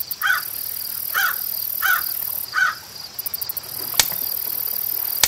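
Intro soundtrack of chirring insects, a steady high pulsing hiss, with four short calls in quick succession and a single sharp mouse-click sound effect about four seconds in.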